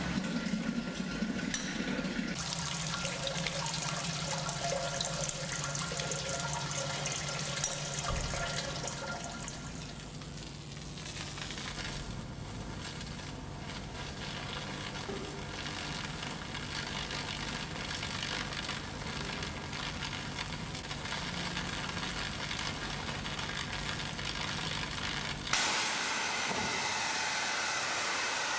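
A scrap-steel chain-reaction contraption running through its sequence: a steady mechanical noise that changes abruptly several times. About 25 seconds in, a sudden loud, steady hiss starts as the two canisters mounted on a chair fire and jet smoke.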